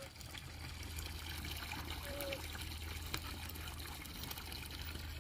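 Water from a garden hose running steadily into a shallow plastic tub that is already partly filled, a continuous trickle and splash.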